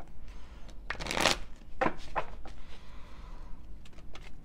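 A deck of tarot cards shuffled by hand. A loud rush of cards about a second in, then a few short, sharp card snaps and a softer rustle.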